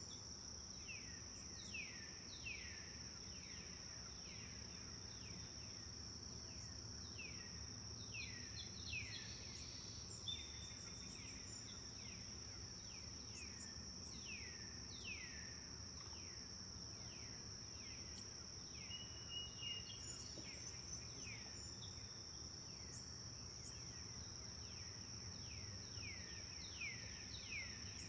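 Forest birds calling in clusters of quick, downward-sweeping chirps, with a few short held whistles, over a steady high-pitched insect drone.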